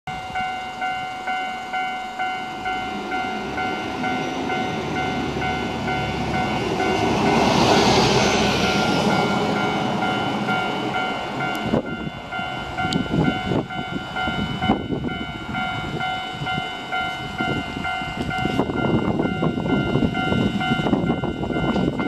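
Japanese level-crossing warning bell ringing in a steady electronic clang about twice a second. A train passes close by about 7 to 10 seconds in, swelling and fading. From about halfway, a Hankyu 5000 series train approaches with a growing rumble and sharp wheel knocks.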